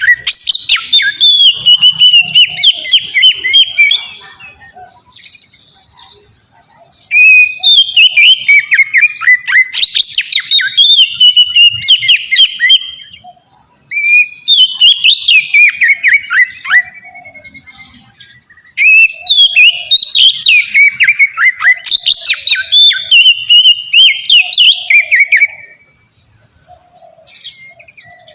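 Oriental magpie-robin (kacer) singing in full, open song. There are four loud bouts of rapid, varied whistled phrases, many sweeping downward, with pauses of one to three seconds between them.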